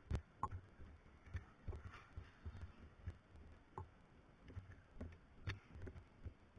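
Faint, irregular low thuds and occasional sharp clicks, roughly two a second.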